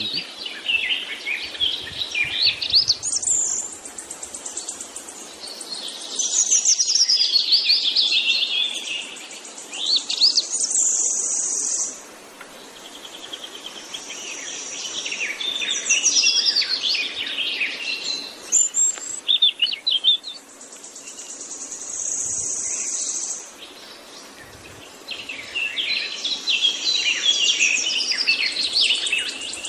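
Several birds chirping and singing in a busy chorus of quick, high calls, with a high, steady insect buzz that comes and goes in stretches of a second or two.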